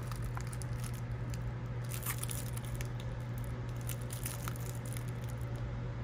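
Padded mailer and bubble wrap crinkling in hand as a bubble-wrapped CPU is drawn out of the envelope: scattered small crackles, busiest about two seconds in and again past the middle. A steady low hum runs underneath.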